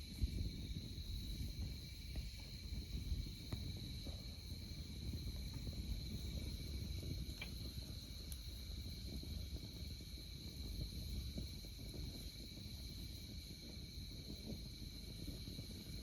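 Campfire burning, a low rustling noise with a few faint crackles and pops, over the steady high chirring of autumn crickets.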